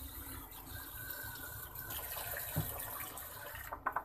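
Water being poured from a glass into a steel pot of raw beef pieces, splashing and filling. A dull knock about two and a half seconds in, and a couple of sharp clicks near the end.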